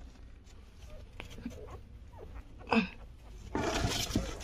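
A newborn puppy gives one short, sharp squeak about three seconds in, over a low background hum. Near the end comes a burst of rustling handling noise.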